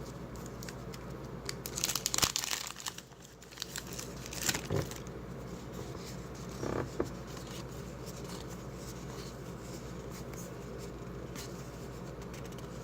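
Trading card pack wrapper being torn open and crinkled, loudest about two seconds in, with a couple of shorter crinkles later.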